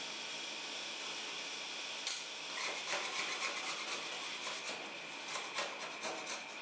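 Two steel spatulas scraping and clicking on a stainless-steel rolled-ice-cream cold plate, starting about two seconds in, in a quick irregular run, over a steady background hiss.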